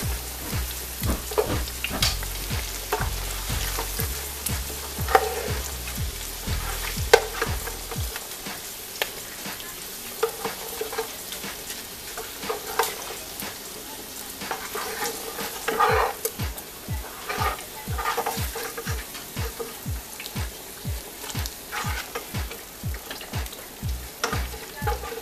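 Fried pork pieces being moved with a utensil from a frying pan into a stainless-steel pot of simmering beans: irregular clicks and knocks of the utensil against the metal, the loudest about 5 and 7 seconds in, over a steady sizzling hiss.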